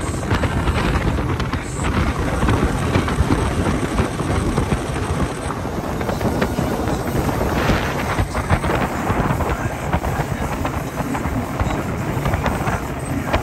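Motorboat running across open water, with heavy wind buffeting the microphone as a steady, loud rush.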